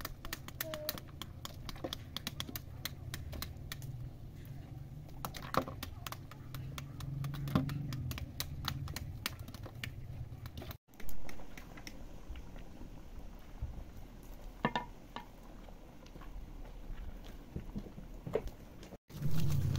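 Quick light clicks and taps of pomegranates being handled: knives cutting into the rinds and fruit knocking together in a wicker basket. The clicks thin out in the second half.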